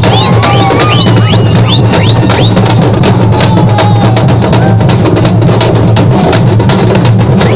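Loud, fast, unbroken drumming by a festival band on barrel drums, with short shrill whistles over it in the first couple of seconds.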